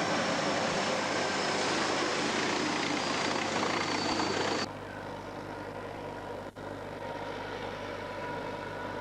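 Heavy military vehicle running with a loud, even rushing noise that cuts off abruptly about four and a half seconds in. A quieter, steady engine sound with a faint hum follows.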